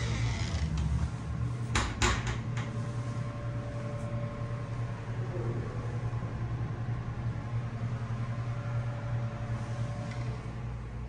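Steady electric fan hum with a few faint steady tones over it, with a couple of sharp knocks about two seconds in.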